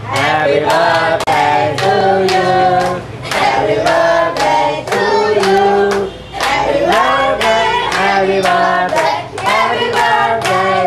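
A group of people singing together and clapping along in time.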